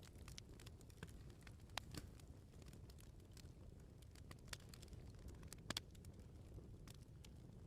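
Wood fire crackling quietly: scattered sharp pops and snaps over a low, steady rumble, with a few louder pops, two of them close together past the middle.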